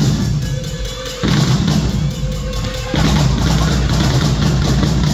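Loud drum-heavy music with a strong low beat, changing abruptly to a new section about a second in and again about three seconds in.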